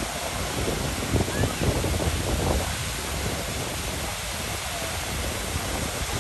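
Busy outdoor city-square ambience: a steady rushing wash of noise with faint voices mixed in and irregular low rumbling gusts.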